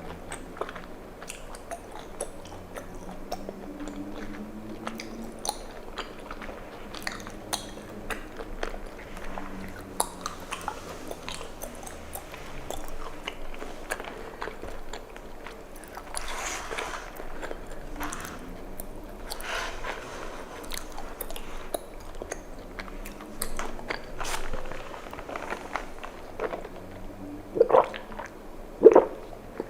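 Close-miked chewing of chewy tapioca pearls from bubble tea: many small sticky, wet mouth clicks and smacks, with a few louder mouth sounds near the end.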